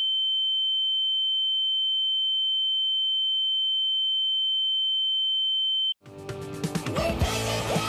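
A steady, high-pitched television test-card tone, a single unwavering sine tone marking the end of transmission, which cuts off abruptly about six seconds in. Music starts straight after it.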